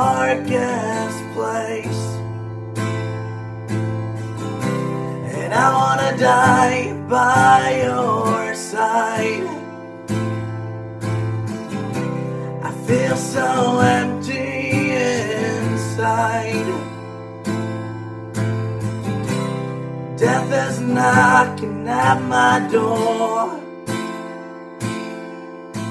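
Acoustic guitar strummed in a steady rhythm, with a man singing phrases of a slow song over it that come and go.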